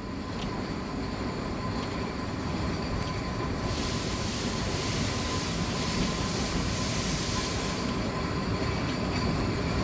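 Narrow-gauge railway carriage rolling out of a station, heard from its open end platform: a steady rumble of wheels on the rails that slowly grows louder. A higher hiss comes in about three and a half seconds in and eases off near the end, over a faint steady whine.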